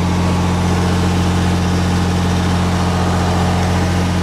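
Miller 400D diesel welder generator running steadily under full load, about 53 amps on one leg against its 50-amp continuous rating: a constant low drone and hum.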